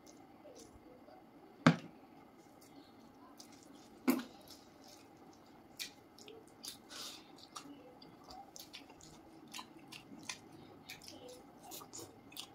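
Eating by hand: fingers squishing rice and curry and mouths chewing, with many small wet clicks and smacks. Two sharp knocks, about a second and a half and about four seconds in, are the loudest sounds.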